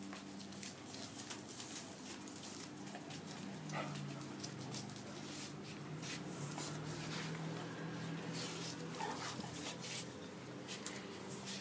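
A beagle and a basset hound play-fighting, with low, drawn-out dog vocal sounds and scattered sharp clicks and scuffles on the tiled floor.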